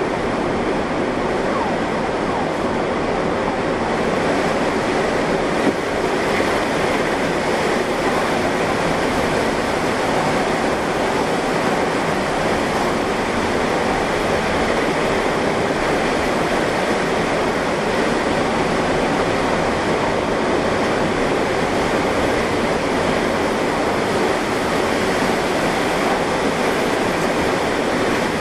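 Tornado wind and heavy rain making a loud, steady rushing noise, with one brief knock about six seconds in.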